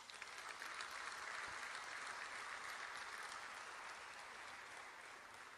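Audience applauding: a dense patter of hand claps that starts at once, holds for a few seconds and dies away near the end.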